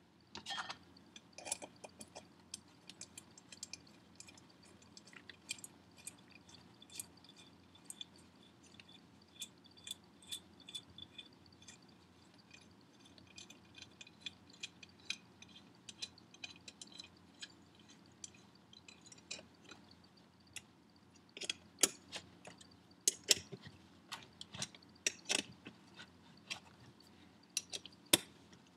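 Light metallic clicks and ticks of small steel bolts and a small wrench being worked against a turbocharger's compressor housing as it is bolted to the center cartridge. The clicks are faint and scattered at first, then louder and sharper from about 21 seconds in as the wrench goes onto the bolts.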